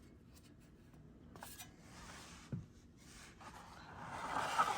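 Rubbing and scraping handling sounds, with a single knock about two and a half seconds in; the scraping grows louder near the end.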